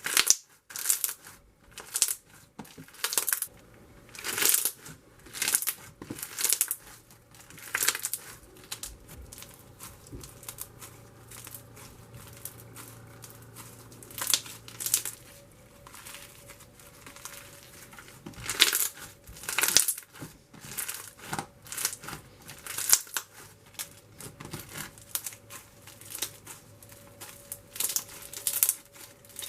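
Crunchy foam slime, topped with sprinkles and chocolate chunk pieces, being squeezed and pressed by hand, giving irregular crackling crunches and pops in quick clusters.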